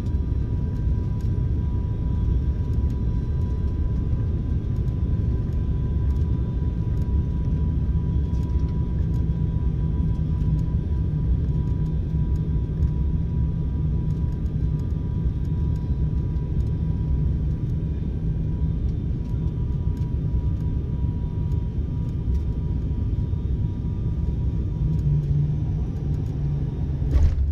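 Airliner cabin noise on final approach and landing: a steady low rumble of engines and rushing air, with a faint steady whine, and a brief thump near the end.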